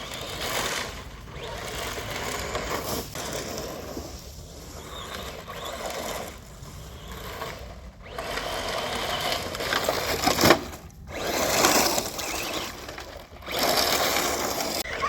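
1/10-scale electric RC rally car being driven hard: the motor whines and the tyres scrabble in surges that come and go with the throttle, with short gaps between runs and the loudest bursts in the second half.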